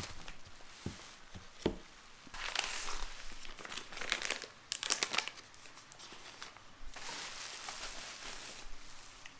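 Plastic packaging and bubble wrap crinkling and rustling as it is handled, in several bursts. Two light knocks in the first two seconds as a small cardboard box is set on a wooden table.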